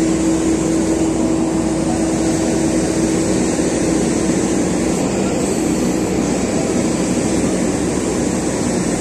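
JCB excavator's diesel engine running steadily under load, a loud constant drone with a steady hum, as it lifts and drags a pickup truck slung from its bucket.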